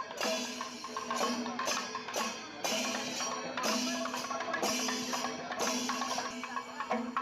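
Music with a steady, rhythmic percussion beat of struck, woody-sounding notes over held tones.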